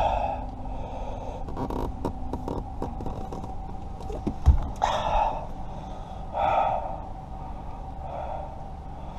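A person's short, strained breaths or grunts, three of them in the second half, over scattered small clicks and a low knock from hand work on the car.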